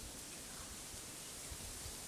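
Steady low hiss with soft low rumbles from inside a car moving slowly along a dirt road.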